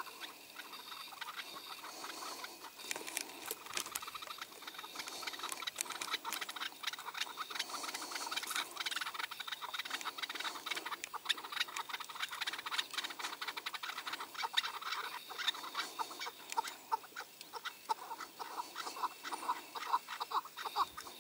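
Chukar partridges clucking and calling in quick series of short notes, over a dense patter of small clicks and rustling.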